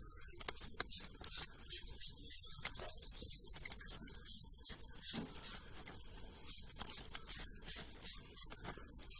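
Raw green mango being pared against an upright curved boti blade: faint, irregular scraping and slicing clicks as strips of peel are shaved off.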